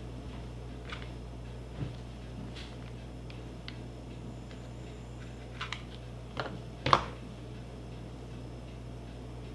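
Small clicks and taps of hands handling a plastic hot glue gun and a wooden stem at a wooden table. About two-thirds of the way through comes a sharp clack as the glue gun is set down on the table. A steady low hum sits underneath.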